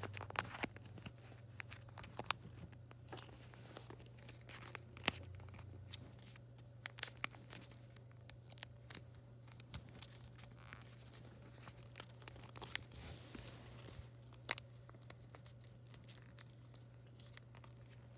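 Thick, many-layered origami paper being folded and creased by hand: scattered crinkles and short sharp crackles of stiff paper, with a patch of rustling about twelve seconds in.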